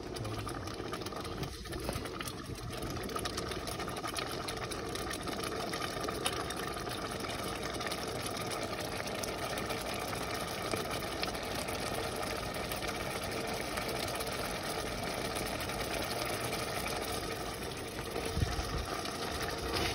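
Thick tomato pasta sauce bubbling and popping steadily in a stainless steel pot on high heat as it comes up to a boil.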